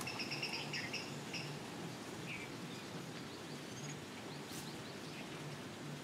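A bird calls a rapid run of high, evenly repeated notes for about a second and a half at the start, followed by a few faint short chirps, over a steady outdoor background hiss.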